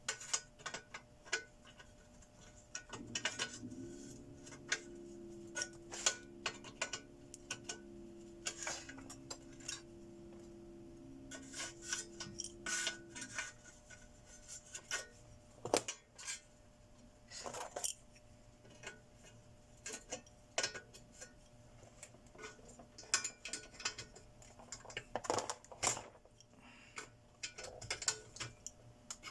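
Irregular clicks, clinks and knocks of metal parts and hand tools being handled while an inverter welding machine is taken apart. From about 3 to 13 seconds a low steady hum runs under the clicks, with a few small steps in pitch.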